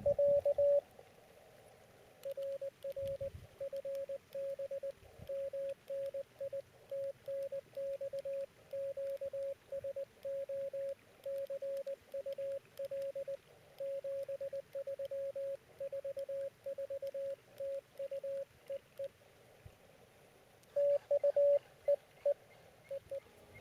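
Morse code (CW) from an Elecraft KX2 transceiver's speaker: a single steady tone keyed on and off in dots and dashes. There is a long, quieter run of sending, with short louder bursts at the start and again near the end.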